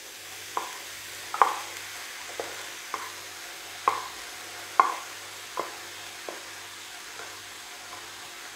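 Cooked toor dal being tipped from a pot into a wok of frying drumstick-leaf thoran: short sharp taps and plops, roughly one a second, over a faint steady sizzle.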